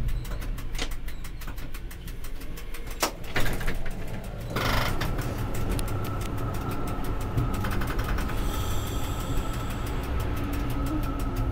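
Road vehicle running on the move, heard from the driver's cab: a steady low rumble, a short burst of noise about four and a half seconds in, then a steady whine.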